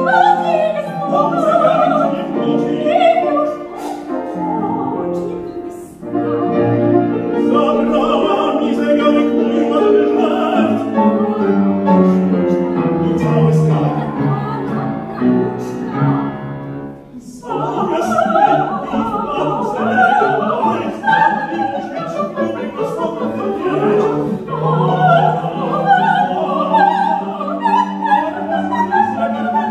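Operatic singing by a soprano and a male classical singer with grand piano accompaniment, with a brief break about two-thirds of the way through.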